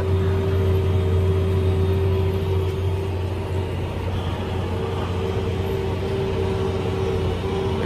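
Tractor engine running steadily, heard from inside the cab while pulling a planter through the field: a deep drone with a steady whine over it.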